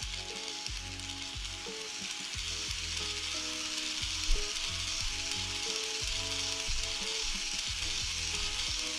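Kato N700S Shinkansen N-scale model train running along the track: a steady hiss of its wheels rolling on the rails, with one short knock about four seconds in.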